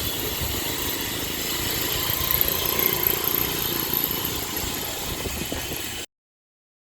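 Wind rumbling on the microphone during a BMX ride, with the Enemy Soundwave rear hub's freewheel buzzing as the bike coasts. It cuts off suddenly near the end.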